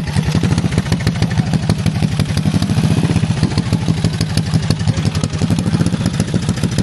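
Custom motorcycle engine with a helicopter cylinder of 5.0-inch bore, running steadily just after being kickstarted, with rapid, even firing pulses.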